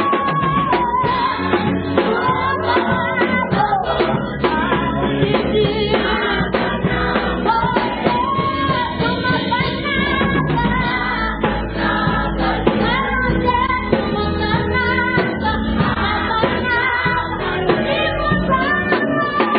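Church choir singing together, backed by a drum kit and keyboard.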